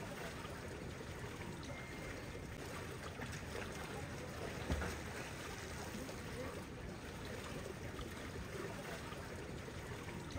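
Steady, fairly quiet rush of running water, with one faint knock about halfway through.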